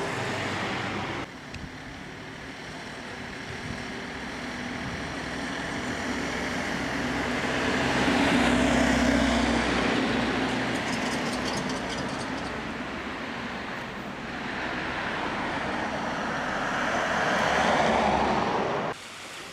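Road traffic on a village street: a passing vehicle's noise swells to a peak and fades, then another swells up near the end before the sound cuts off abruptly.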